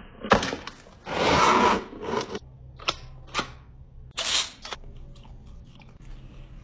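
Packaging handled and opened by hand: a sharp snap, then about a second of loud rustling, two single clicks and another short rustle.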